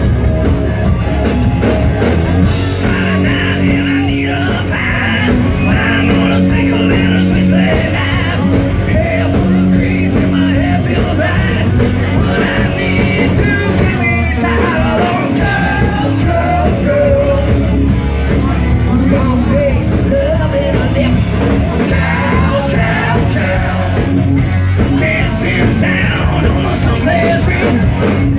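Live rock band playing loud, with sung and yelled vocals over electric guitar and drums.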